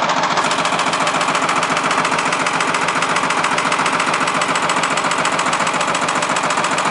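Backhoe loader running steadily, with a fast, even knocking of about a dozen beats a second, cutting off abruptly at the end.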